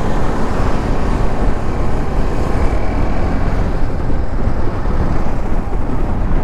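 Motorcycle on the move through traffic: steady wind rush on the microphone over engine and road noise.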